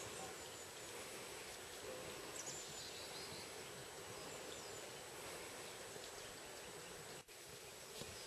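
Low, steady outdoor hiss of forest ambience, with a few faint, brief high chirps from a small bird about two to three seconds in, and a momentary dropout near the end.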